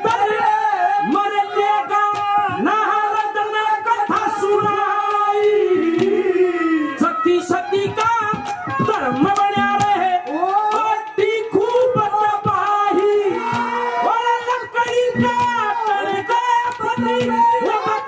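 Male singer performing a Haryanvi ragni live, with long held, bending notes over a steady hand-drum accompaniment.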